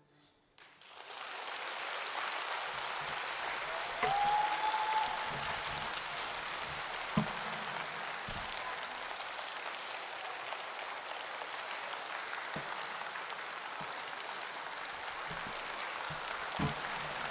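Audience applause that starts about half a second in after a brief hush, swells within a second and then holds steady. A single short rising call, like a cheer, rises over it about four seconds in.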